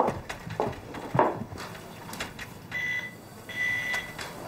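A few soft knocks and clicks, then two short electronic beeps at a steady high pitch about three seconds in.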